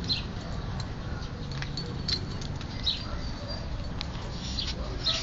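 Husky puppies giving short, high-pitched squeaks, about five spread over a few seconds, over a low steady background rumble.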